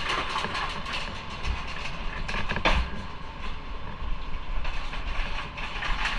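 Motorcycle on the move: wind rushing over the microphone with a low road and engine rumble underneath, and one sharp click about two and a half seconds in.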